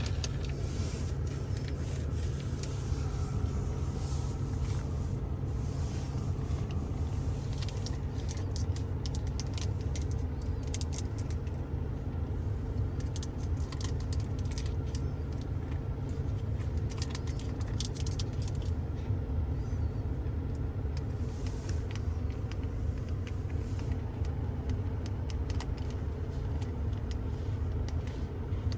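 Quick clusters of light tapping on a Ford Focus's interior surfaces, over a steady low rumble.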